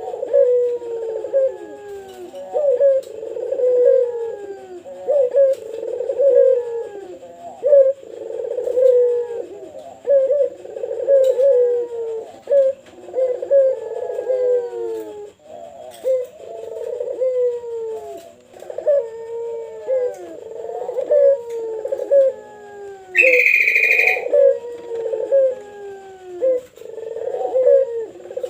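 Pelung-type puter doves cooing: repeated, overlapping coos that fall in pitch, one phrase about every second. A brief, loud, shrill sound cuts in about 23 seconds in.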